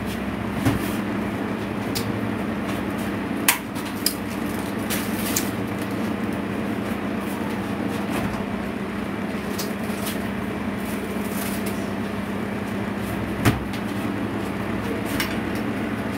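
Steady electrical hum of a kitchen appliance, with a few sharp knocks, the loudest about three and a half seconds in and again near the end.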